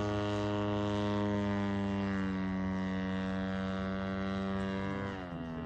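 The 50–60cc engine of a Hangar9 Pitts S-2B radio-controlled biplane runs steadily in flight, a loud, even propeller drone. About five seconds in, its pitch falls and it gets quieter as the engine slows.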